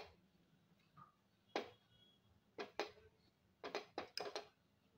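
A hand mixing a fritter mixture of mashed chicken, potato, chopped onion and gram flour in a bowl: a few faint, short taps at irregular intervals, bunched together near the end.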